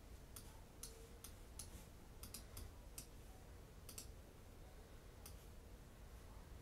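Near silence broken by about ten faint, sharp clicks at irregular intervals, with none in the last second or so.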